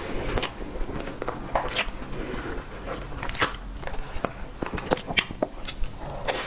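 Close-miked eating sounds: chewing with irregular wet mouth clicks and smacks.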